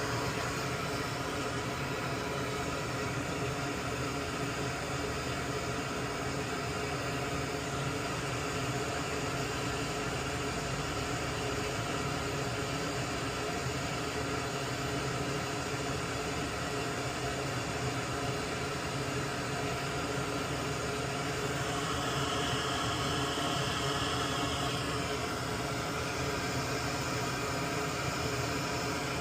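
A small fan running steadily: an even whir and hiss with a faint hum.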